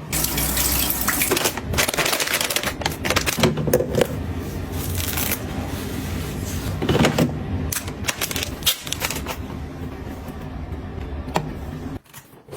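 Dense clicking, tapping and rustling of containers and packaging being handled and set down, over a low steady hum; it stops abruptly near the end.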